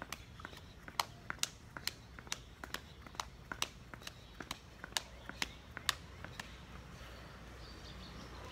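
Sneakers slapping on paving stones as a person jogs in place with high knees, about three sharp taps a second. The steps stop a little over six seconds in, leaving only a steady low background noise.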